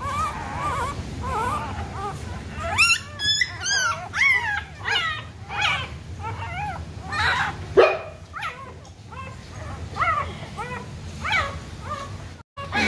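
Soaked young puppies whimpering and yelping: a string of short high-pitched cries that rise and fall in pitch, about one or two a second.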